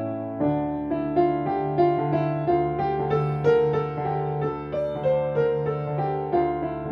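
Grand piano played by hand: a gentle melody of single notes, about three a second, ringing over a held low bass note that changes a couple of times.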